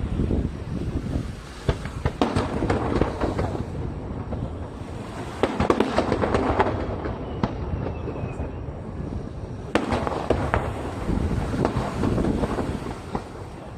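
Aerial fireworks shells bursting, sharp bangs and crackling over a continuous low rumble, coming in three dense volleys a few seconds apart.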